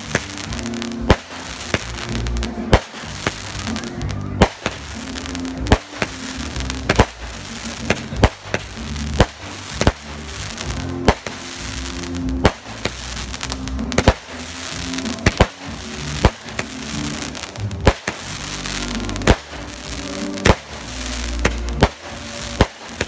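Aerial fireworks bursting overhead in a steady run of sharp bangs, roughly one a second, with music playing underneath.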